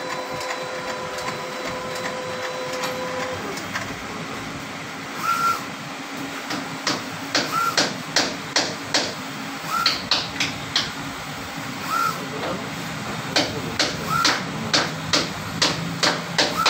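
UV flatbed printer at work: a steady hum with a whine that stops about three and a half seconds in, then a run of sharp mechanical clicks and knocks with a short chirp repeating about every two seconds as the print carriage travels.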